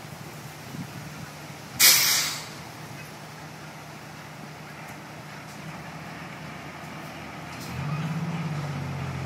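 Isuzu fire truck's diesel engine idling steadily, with a short, loud burst of air hiss from its brakes about two seconds in. Near the end the engine revs up as the truck moves off.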